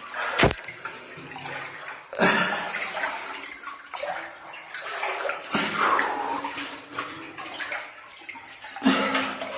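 Water sloshing and splashing in irregular surges as a person wades chest-deep through a flooded mine passage, with a sharp knock about half a second in.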